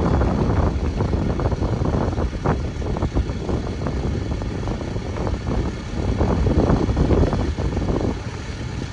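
Gusty wind buffeting the microphone in a continuous low rumble, with the loose white plastic of a grain storage bag flapping and crackling as it billows and is pulled at.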